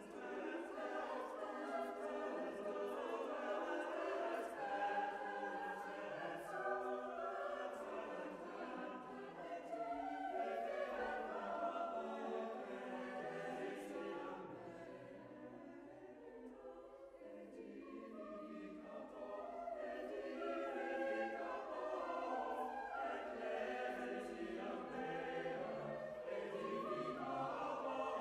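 Choir singing, many voices holding overlapping sustained notes, growing softer around the middle and then swelling again.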